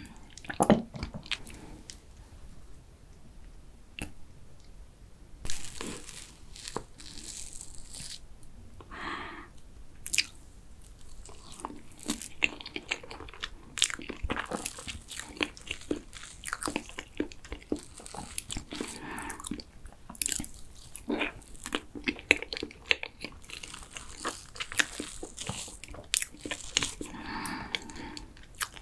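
Close-miked eating of soft layered cream cake: chewing and lip smacks, with a spoon clicking and scraping against a clear plastic cake box.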